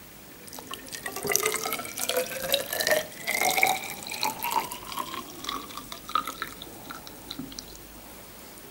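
Salt solution poured into a plastic measuring cylinder: splashing with a tone that rises steadily in pitch as the liquid column fills the cylinder. The pouring eases off about a second and a half before the end.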